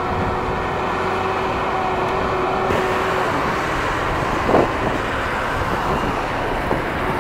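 John Deere wheel loader's diesel engine running as it drives across the yard, over a steady traffic hum. A single short knock comes about four and a half seconds in.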